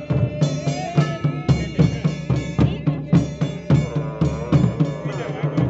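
Drums beating a fast, steady rhythm, about three or four strokes a second, with a wavering melody line playing over them.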